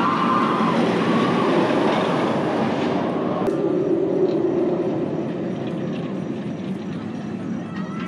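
Bolliger & Mabillard hyper coaster train running on its steel track, a steady roar of wheels on rail. About three and a half seconds in the sound cuts to a somewhat quieter roar of a train on the track.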